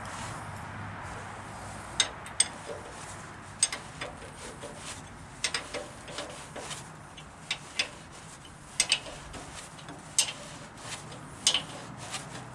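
Hand wrench working a nut on a bolt on the tractor, giving sharp metallic clicks and clinks at irregular intervals, about one a second, some in quick pairs.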